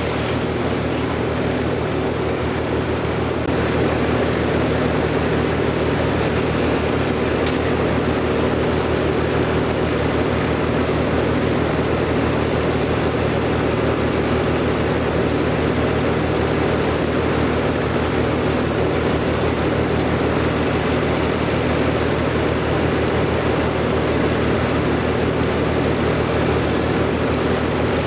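A chainsaw and a compact diesel loader tractor running together as a steady engine drone, which gets louder about three and a half seconds in.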